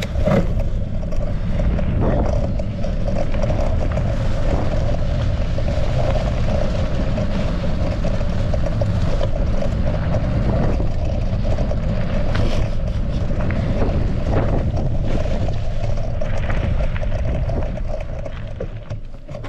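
Mountain bike riding fast down a dirt single-track trail: wind rushing over the bike-mounted microphone and knobby tyres rolling over dirt, with scattered rattles and knocks. The noise fades away near the end.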